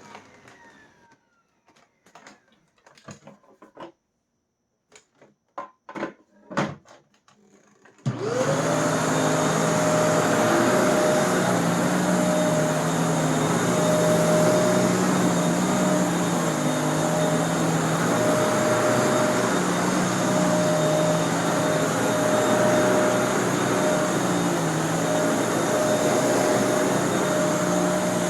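A few clicks and knocks, then about eight seconds in a Kenmore Elite 31150 vacuum cleaner switches on: its motor spins up quickly and settles into a loud, steady run on its first test after reassembly, with a lower hum that wavers up and down.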